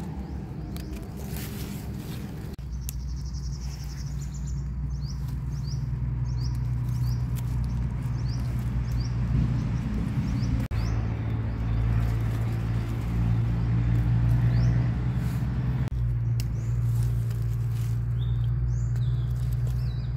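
Small birds chirping again and again over a steady low drone, in the open.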